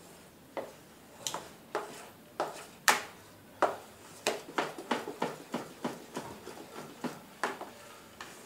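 A spoon folding thick cake batter in a stainless steel bowl, making irregular soft scrapes and light knocks against the metal side, coming more often in the middle. The baking powder is being folded in gently.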